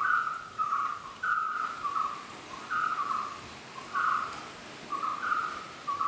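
A bird calling over and over in short, clear whistled notes, often in pairs, one to two notes a second.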